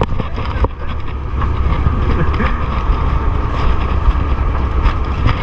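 Wind buffeting an action camera's microphone aboard a small open fishing boat, a steady low rumble with a constant hiss over it.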